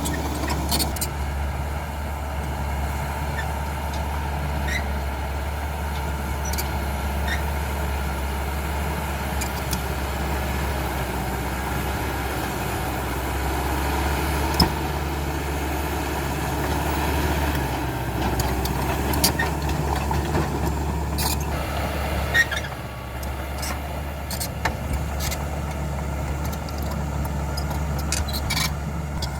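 Diesel engine of a Caterpillar D5K XL crawler bulldozer running steadily with a deep low hum, with scattered sharp clicks and knocks over it.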